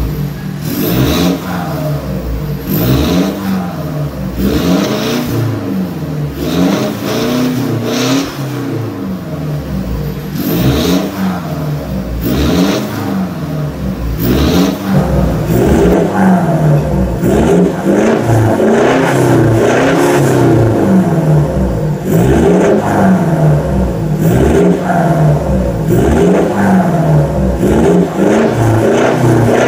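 Mitsubishi Montero Sport's turbodiesel engine revved again and again through an aftermarket turbo-back exhaust, its pitch rising and falling every second or two. The revs come louder and closer together from about halfway through.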